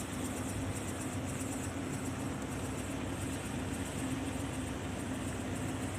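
A steady engine-like drone with a constant low hum that does not change.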